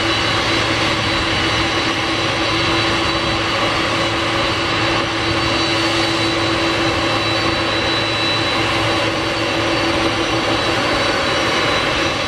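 Boeing 747-400's four jet engines running at taxi power as the airliner rolls past: a steady rushing hiss with a humming tone and a high whine.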